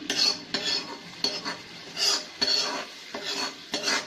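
Spoon scraping the spice tempering (tadka) out of a small pan onto kadhi, a series of short scrapes about one every half second.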